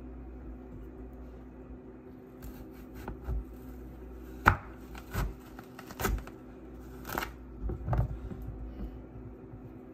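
Chef's knife slicing through a yellow squash and knocking on a wooden cutting board. A run of sharp cuts starts a couple of seconds in, and the loudest comes about midway.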